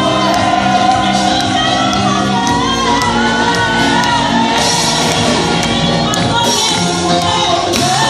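A choir and a lead singer performing live with instrumental accompaniment, a steady beat under the sung lines.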